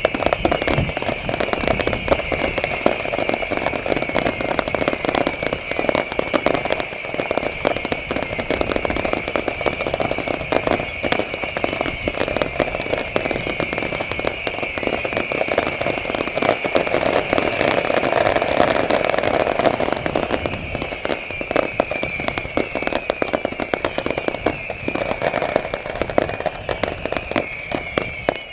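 Fireworks display: a dense, unbroken run of bangs and crackling bursts, overlaid by many whistles that keep falling in pitch.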